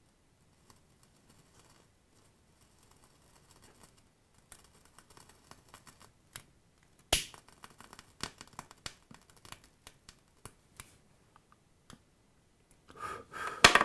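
Faint crackling and small clicks as e-liquid coating a rolled mesh wick burns off after being set alight with a lighter, the burn-in step meant to help the mesh wick soak up liquid. A sharp click about seven seconds in and another near the end.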